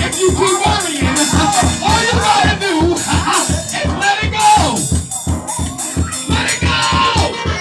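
Fast church praise music: an even drum beat about four times a second with a high rattle on each beat, and pitched lines gliding over it.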